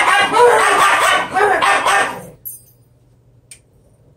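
Small dog barking in a quick run of yaps for about two seconds, then stopping.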